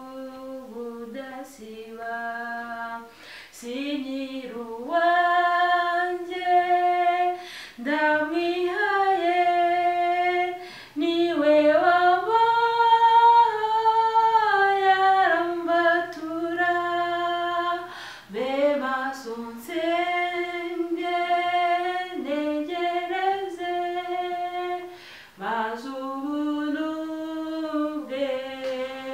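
A woman singing a hymn solo and unaccompanied, in long phrases with short breaths between them; a long held high note comes near the middle.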